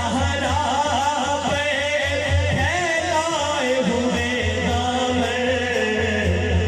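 A man's solo voice singing a naat through a microphone and loudspeakers: long, ornamented phrases with a wavering pitch, settling into a held note about halfway through, over a steady low hum.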